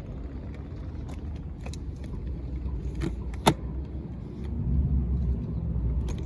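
A car running in a car park, a steady low rumble that grows louder for a couple of seconds near the end, with scattered light clicks and jingles and one sharp click about halfway through.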